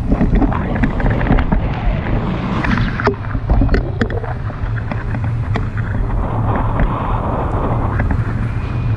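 Airflow buffeting an action camera's microphone on a selfie stick during a tandem paraglider flight: a loud, steady, rumbling wind rush, with a few sharp clicks about three to four seconds in.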